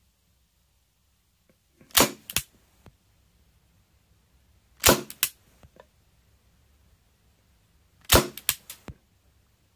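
Marushin M10 Military & Police gas revolver firing three shots at a cardboard box, about three seconds apart. Each shot is a sharp pop followed by one or two lighter clicks.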